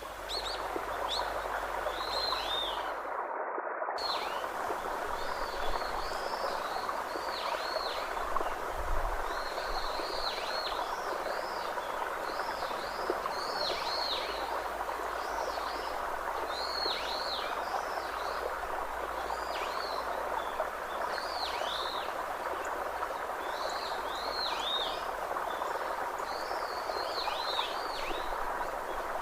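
A bird calling over and over with short, high, down-slurred chirps, a few seconds apart or closer, over a steady rushing background noise.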